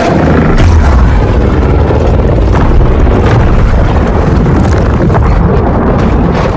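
Loud, distorted monster-roar sound effect: a dense, rumbling roar, heaviest in the low end, held steady at full volume.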